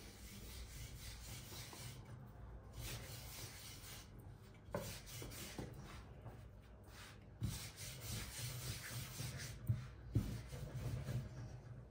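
Long thin wooden rolling pin (oklava) rolling over flour-dusted sheets of yufka dough on a silicone pastry mat: a soft, steady rubbing, with a few light knocks about halfway through and near the end.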